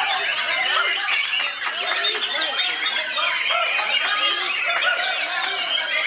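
Continuous dense, overlapping bird song made of many quick chirps and warbles from several birds at once, the caged white-rumped shama (murai batu) among them, with people talking underneath.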